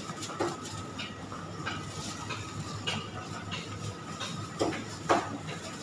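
Supermarket background noise: a steady hum with a thin high tone running throughout, and scattered short rustles and knocks from shoppers handling goods.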